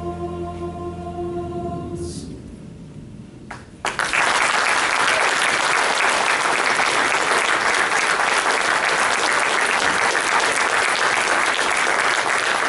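Final chord of a men's choir and band held and fading out about two seconds in; then, about four seconds in, loud audience applause starts and continues.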